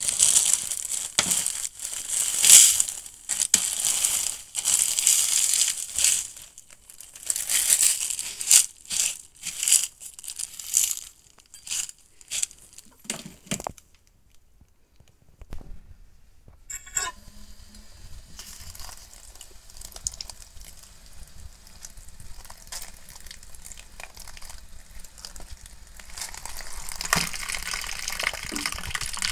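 Plastic seed bag crinkling and rustling in bursts as cat-grass seed mixed with vermiculite is shaken out into a plastic tray. After a short lull, a softer steady hiss of water being poured over the seeds to soak them, growing louder near the end.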